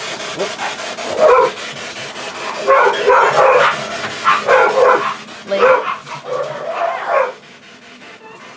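Several pet dogs barking excitedly in a rapid string of barks that stops near the end.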